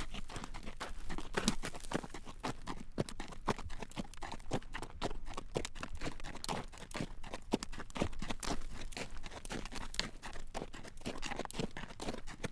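Carriage horse's hooves clip-clopping on a road at a walk, a steady run of sharp clacks several times a second.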